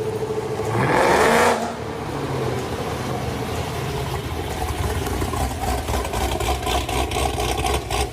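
Chevrolet SS's 6.2 L LS3 V8, fitted with a BTR Stage III cam and catless long-tube headers, blipped once about a second in, then idling with an uneven, pulsing beat from the big cam.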